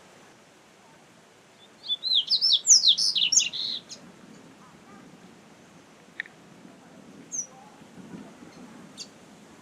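Double-collared seedeater (coleiro) singing one short, rapid song of high chirping notes about two seconds in, followed by a few faint single chirps.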